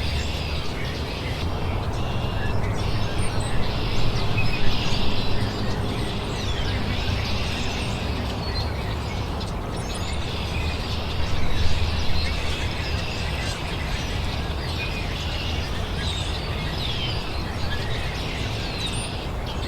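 Many small songbirds chirping and calling, with quick high chirps throughout over a steady low outdoor rumble.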